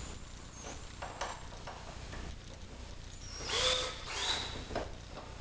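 Cordless drill driving a screw into a window-shade bracket, in two short bursts about three and a half and four and a quarter seconds in, each with a rising motor whine as it spins up.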